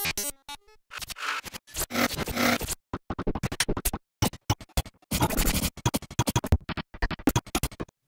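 Glitch sound effects from the Glitchmachines Tactic sample sequencer: rapid, irregular stutters and chopped bursts of sampled sound, broken by sudden cut-offs, short silences and sharp clicks.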